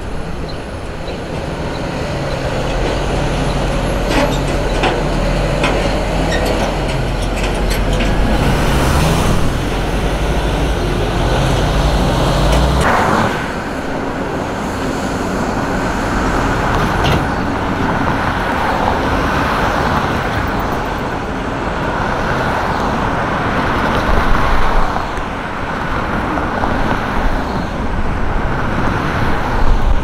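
Street traffic noise with a large vehicle's engine running close by for about the first thirteen seconds, then dropping away, leaving steady road noise.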